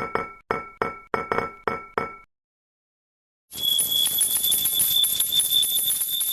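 Level-crossing warning bell ringing: a two-tone clang repeating about three times a second, stopping about two seconds in. After a second of silence, a faster, higher, jingling ring with a steady shrill tone starts and keeps going.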